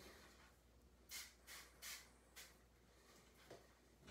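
Near silence: quiet room tone with several faint, short hissing sounds, spaced about half a second apart from a second in, and one more near the end.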